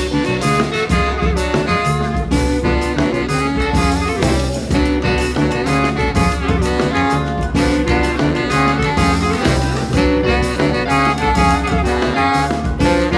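A jazz band playing an up-tempo number, with horns over bass and drums.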